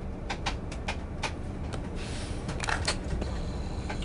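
Steady low rumble of a moving coach heard from inside the cabin, with scattered light clicks and rattles.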